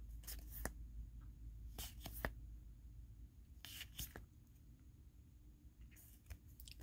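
Faint, brief rustles and flicks of trading cards being handled, as cards are slid from the front to the back of a hand-held stack, several times.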